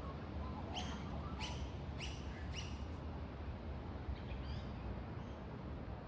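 A wild bird calling: four short, high notes each sweeping downward, evenly spaced about half a second apart, followed about a second later by a few fainter chirps. A steady low rumble runs underneath.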